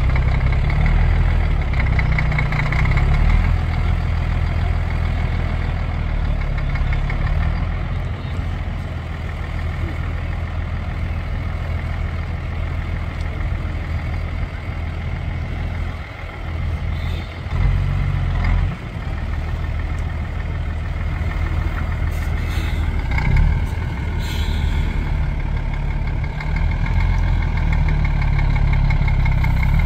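Trial truck's diesel engine working at low speed as the truck crawls up a steep dirt bank. The engine note swells and eases, dropping away briefly twice between about sixteen and nineteen seconds in, with a few short knocks later on.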